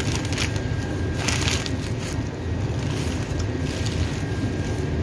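Plastic packaging crinkling and rustling as a bag of frozen French fries is handled inside a thin plastic shopping bag, in irregular crackly strokes over a steady low hum.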